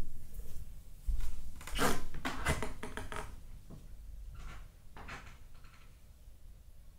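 Household handling sounds in a small room: a low rumble comes in about a second in, then a cluster of soft knocks and scrapes, with two fainter knocks near the middle before it quietens.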